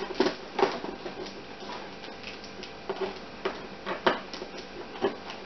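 Fingers picking and scraping at clear packing tape on a cardboard box, giving irregular scratchy crackles with a few louder scrapes.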